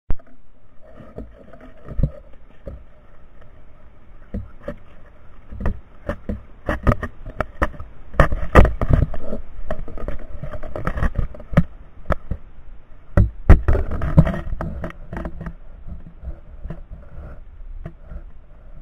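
Handling and rubbing noise from a camera mounted on a shotgun being carried: irregular knocks and scraping on the mount, with low rumble and a faint steady hum underneath.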